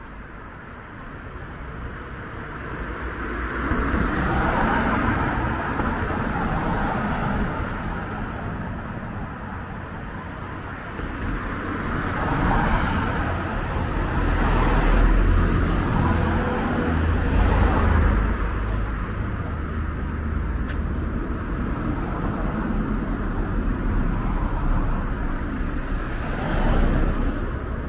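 Road traffic: cars passing one after another, each swelling and fading, with a deeper rumble in the middle.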